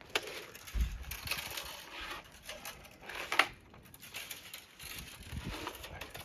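Fish tape being pulled out of its case by hand: scattered scraping, clicking and handling knocks, with a sharper scrape about three and a half seconds in.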